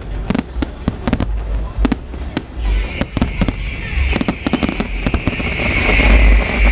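Aerial fireworks display: rapid, irregular bangs of bursting shells over deep booming rumble. A dense hiss builds from about halfway through among the bangs.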